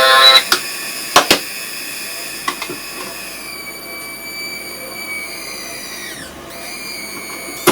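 Circuit-bent noise box: a loud buzzing drone cuts off about half a second in, followed by a few sharp clicks. From about three seconds in, a thinner high electronic whistle sounds and sweeps down in pitch around six seconds.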